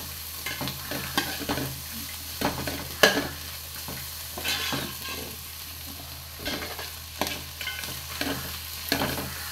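Metal spoon scraping and clinking against a metal pot while stirring onions, peas and carrots frying in butter and oil, with a faint sizzle underneath. The strokes are irregular, several a second, and the sharpest clink comes about three seconds in.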